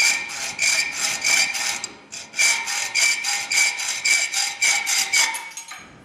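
Hacksaw cutting through the metal handle of a dinner fork clamped in a vise: quick, even back-and-forth scraping strokes with a ringing metallic tone. The strokes pause briefly about two seconds in, then carry on and stop shortly before the end.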